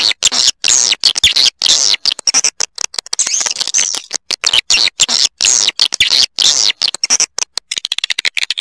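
Swiftlet call recording of the kind played to lure swiftlets into a nesting house: many high-pitched swiftlet chirps and twitters in quick succession, chopped by frequent brief silences.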